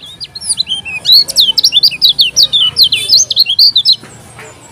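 Caged kecial kuning, a white-eye, singing a fast, loud run of sharp whistled notes, several a second, that stops abruptly about four seconds in.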